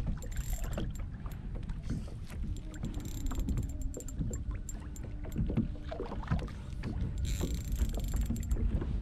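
Water lapping and slapping against a plastic kayak hull under a steady low rumble, with many small scattered clicks and knocks.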